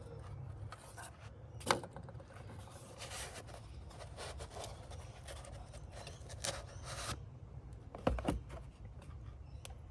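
Hands working a D3S xenon headlight bulb and its plastic clip-in mount: rubbing and scraping with scattered small clicks, a sharp click early on and a pair of knocks near the end.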